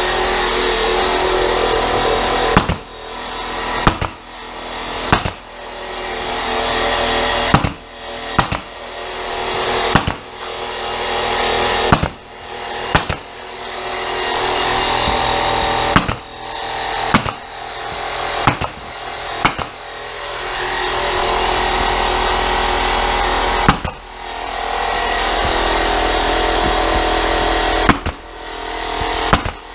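Pneumatic nail gun firing about fifteen times at uneven intervals, driving nails into laminate flooring, over the steady running of an air compressor.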